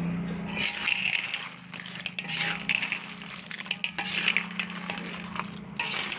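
Cooked crab and cockle shells being cracked and picked through by hand, in irregular crunching, crackling bursts over a low steady hum.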